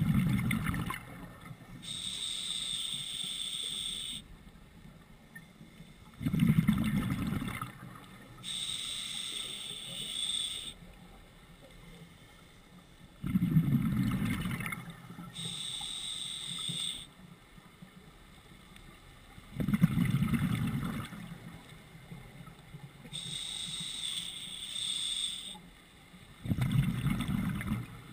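Scuba diver breathing through a regulator: a hiss from the demand valve on each inhale, then a louder rush of exhaled bubbles bubbling out, in a slow, even rhythm of about one breath every six to seven seconds.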